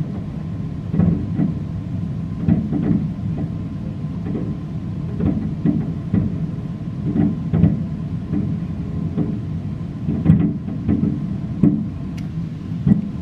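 Distant aerial fireworks shells bursting: about a dozen dull booms at irregular intervals over a steady low rumble, with a few faint sharp ticks near the end.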